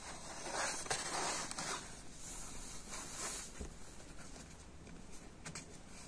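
Cardboard box rustling and scraping as a cat shifts and sits up inside it, in two bursts over the first three seconds or so, followed by a few light taps.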